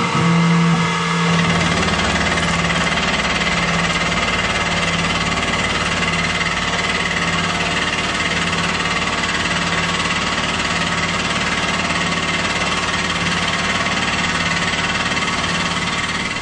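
Tormach CNC mill fly-cutting 6061 aluminum with a single carbide-tipped cutter: a steady machining hum with a strong low tone, as the cutter takes an even surfacing pass.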